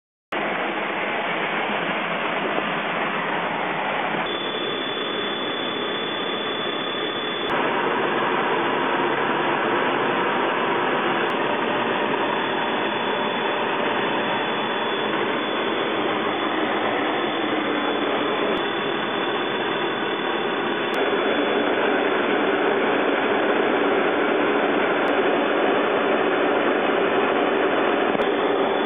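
Steady rushing roar of cockpit noise inside a military jet in flight: engine and airflow noise, with a faint thin high whine through the middle. The roar grows louder in steps about seven and about twenty-one seconds in.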